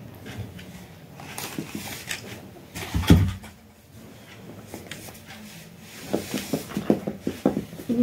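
A parakeet's beak working at a small metal ring held out by hand, giving scattered small clicks and rattles, then a quick run of sharp clicks near the end. A single heavy thump comes about three seconds in.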